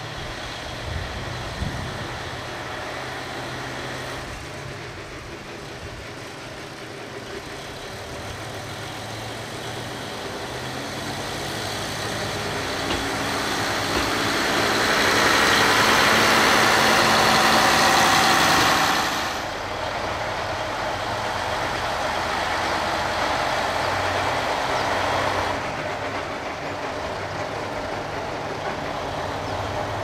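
KiHa 40 diesel railcar pulling away: its diesel engine runs low at first, then revs up and grows louder, loudest for a few seconds past the middle, and drops off suddenly just after, with a further smaller drop near the end.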